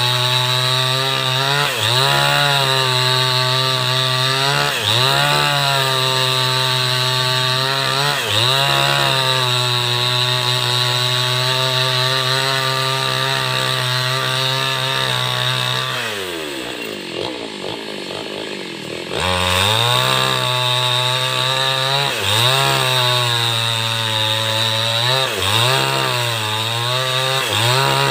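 Two-stroke petrol chainsaw running at high revs, bucking a felled tree trunk, its pitch dipping briefly every few seconds as the chain bites into the wood. About sixteen seconds in, the engine drops to idle for around three seconds, then revs back up and resumes cutting.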